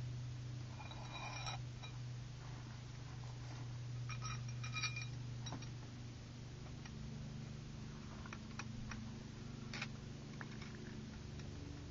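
Metal parts of a Nemesis Arms Vanquish takedown rifle clinking and clicking as they are fitted together: a ringing clink about a second in, a cluster of clinks around four to five seconds in, then scattered small clicks. A steady low hum runs underneath.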